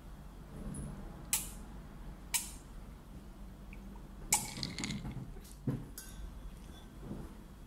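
A metal spoon and fork clinking against a ceramic plate while eating: about five sharp, separate clinks, the loudest a little past four seconds in.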